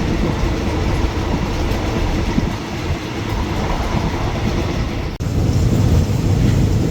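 Passenger train running along the line, a steady rumble of wheels on rails heard from inside the carriage. About five seconds in the sound breaks off for an instant, and then the low rumble comes back louder.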